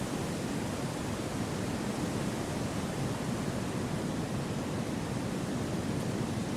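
Steady wind rushing through a forest, an even hiss with no gusts, rises or distinct events.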